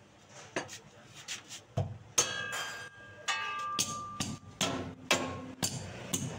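Metal hand tools knocking and clinking against a car's exhaust pipe and its mounting brackets during an exhaust repair. About a dozen sharp metallic knocks come roughly two a second, and several ring on briefly.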